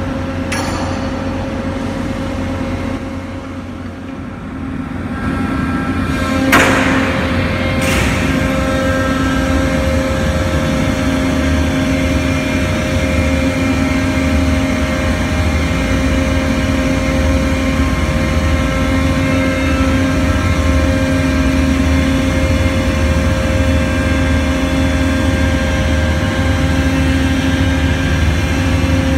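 Ship's deck crane machinery running with a steady, loud hum. The hum dips and then builds up again a few seconds in. Two sharp metallic knocks follow, about a second and a half apart.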